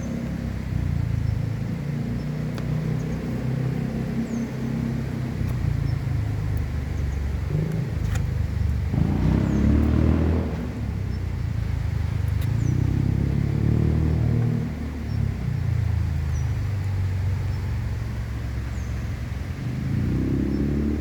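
A chorus of Oriental fire-bellied toads calling, many low pitched notes overlapping continuously, swelling louder about halfway through.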